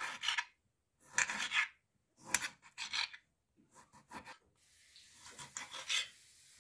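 A kitchen knife sawing through lemons on a glass cutting board, cutting thin slices. It comes as short scraping strokes about once a second, with silence between them.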